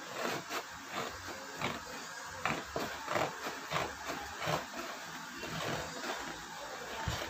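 Scissors cutting through cardboard: a string of short crunching snips, two or three a second, thinning out after about five seconds.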